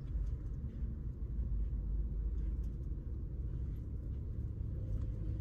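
Steady low rumble of a car heard from inside its cabin, with no sharp events.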